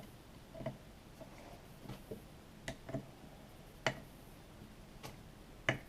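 Scattered light clicks and ticks of a hand screwdriver working at the small case screws of a two-stroke bicycle engine, at irregular intervals.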